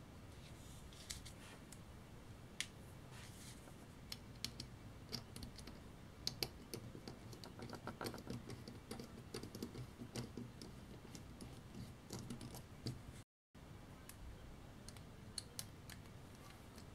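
Faint, irregular small clicks and scratches of a precision screwdriver bit turning out the tiny screws of a GoPro Hero5 Session's metal battery cage, with fingers handling the small camera body. The clicks come thickest in the middle.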